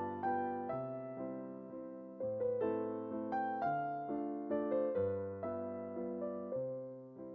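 Slow background piano music: chords and a melody struck and left to ring, a new note or chord about every half second to a second.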